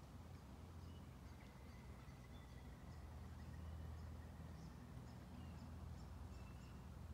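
Quiet bushland ambience: faint, scattered short bird chirps and a thin whistle held for about two seconds from a second in, over a low steady rumble.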